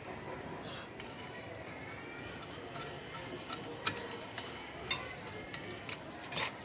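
Metal clicks and clinks of a puller being fitted to pull a wheel's brake drum, a scatter of sharp taps mostly in the second half.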